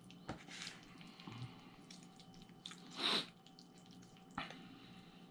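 Quiet eating sounds: a plastic fork clicking and scraping in a cardboard takeout tray of spaghetti, a few separate light clicks, with one short rushing noise about three seconds in.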